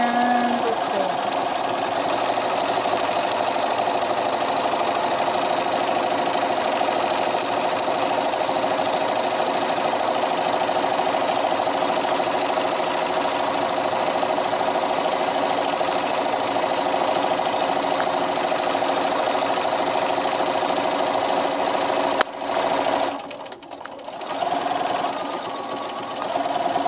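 Bernina sewing machine stitching fast and steadily during free-motion quilting, the needle running at a rapid even rate. Near the end it stops for a moment, then starts again more slowly and unevenly.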